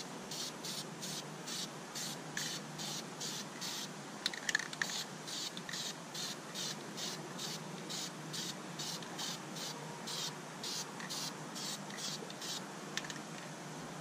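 Krylon aerosol spray paint can hissing in short, rapid bursts, about three a second, as paint is misted on in light passes. The bursts stop shortly before the end.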